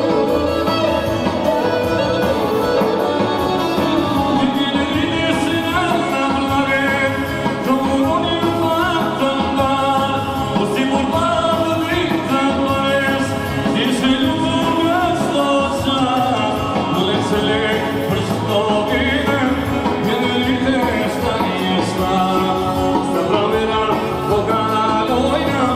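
Albanian folk dance music (valle) from a wedding band with a singer, played loud over the hall's PA speakers without a break.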